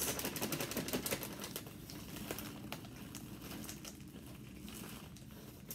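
A plastic zip-top bag crinkling and rustling as crushed Oreo cookie crumbs are shaken out of it into a cup. The crackling is irregular, busiest in the first couple of seconds, then thins out and gets quieter.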